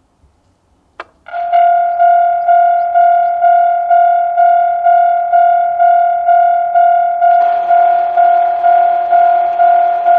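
Japanese level-crossing electronic warning bell of the 'Tokai tone' type, starting just after a click about a second in and pulsing about twice a second. About seven seconds in, a loud harsh noise joins the bell and keeps going. This is the noise that makes this crossing's bell sound odd as the barriers come down.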